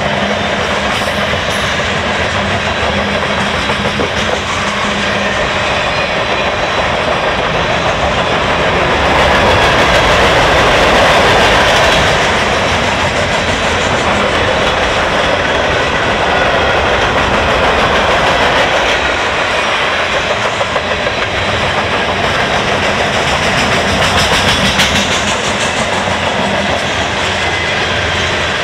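Freight cars of a long train (boxcars, covered hoppers and tank cars) rolling past close by: a steady loud rumble and clatter of steel wheels on rail, swelling briefly about a third of the way in.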